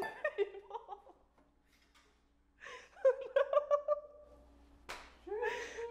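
People laughing and giggling, with one short sharp knock about five seconds in.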